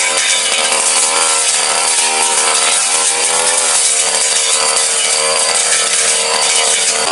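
Backpack brush cutter's small petrol engine running hard, its pitch rising and falling as a long steel blade cuts through undergrowth and small woody stems.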